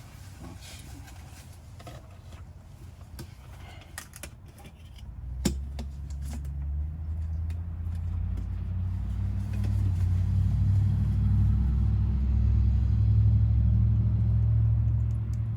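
A few light clicks and knocks. About five seconds in, after a sharp click, a low engine rumble builds up and then runs steadily.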